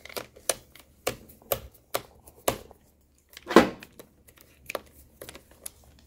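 Small screws and a precision screwdriver clicking against the plastic bottom cover of a ThinkPad T460 laptop as the screws are set and driven back in. About nine irregular sharp clicks, the loudest about three and a half seconds in.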